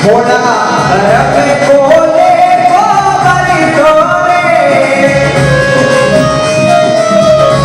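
Chetavani bhajan music: a continuous melody of sliding, held notes over a steady accompaniment.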